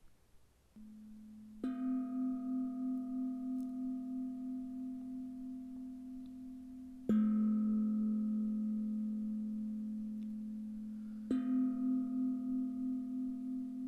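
A singing bowl struck three times, a few seconds apart, each strike ringing on with a slow, pulsing hum that fades but is still sounding at the next strike.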